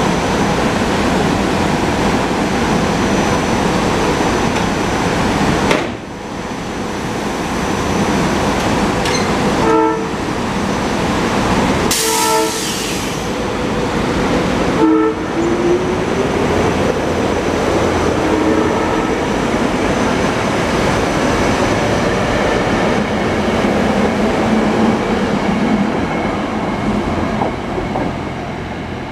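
SEPTA Silverliner IV electric commuter train running past close by, with a steady rumble of wheels and undercarriage, easing off near the end as it pulls away. Its Leslie RS3M horn sounds three short blasts, about ten, twelve and fifteen seconds in, blowing for the road crossing.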